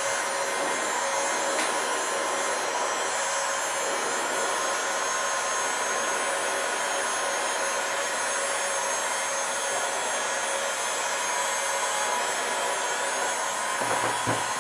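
Electric heat gun blowing steadily, a fan rush with a steady whine in it, warming the glass digitizer to soften its adhesive.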